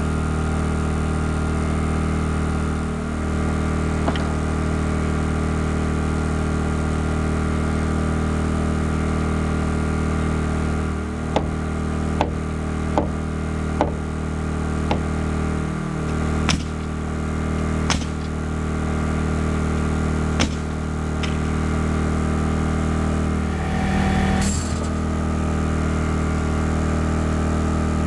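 An engine drones steadily while about ten sharp nailing strikes ring out at uneven intervals, starting a little before halfway and ending a few seconds before the end.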